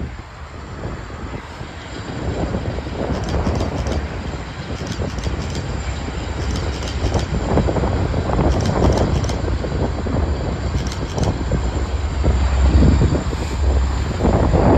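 Freight train led by diesel locomotives crossing a steel girder bridge: a steady low rumble that grows louder after the first couple of seconds, with scattered sharp clicks.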